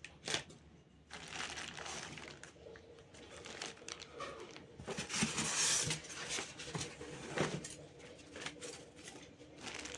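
Packaging crinkling and rustling as it is handled while a new fan is unboxed, with scattered small clicks and a louder stretch about five seconds in.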